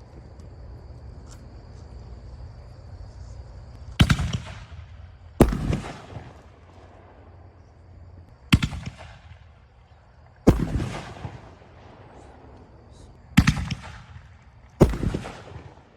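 Consumer 1.75-inch canister firework shells firing: six loud sharp bangs, spaced about one and a half to three seconds apart, each trailing off in an echoing rumble.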